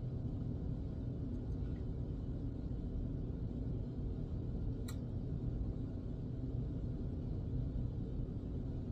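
Faint, steady low rumble of room noise, with one short click about five seconds in.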